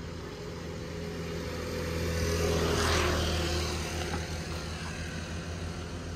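A motor vehicle engine running with a steady low hum, with the rush of a vehicle passing close about three seconds in.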